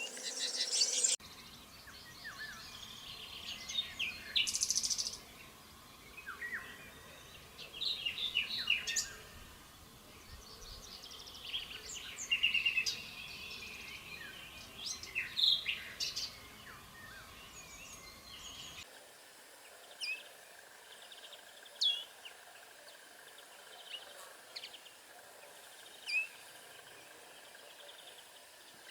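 Wild birds singing and calling, several at once with chirps and trills. About two-thirds of the way through the sound changes abruptly to a sparser scene where one short falling call note repeats every couple of seconds.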